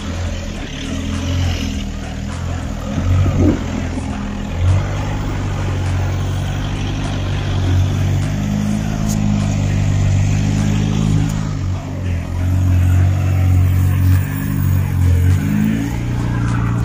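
Jeep TJ Unlimited's swapped-in 2.0 TDI diesel engine working under load as it crawls up a snowy, rocky slope, the revs rising and falling with the throttle.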